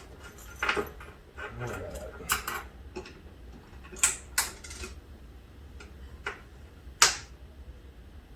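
A handful of scattered sharp clicks and taps, the loudest about seven seconds in, as a flathead screwdriver pries the reed-switch O sensor board loose from a Chexx hockey table.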